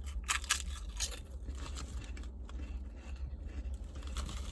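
Potato chips being crunched and chewed with the mouth: a few sharp crisp bites in the first second, then quieter chewing crunches.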